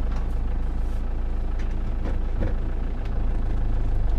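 Hymer motorhome's engine idling with the vehicle stopped, heard from inside the cab as a steady low drone.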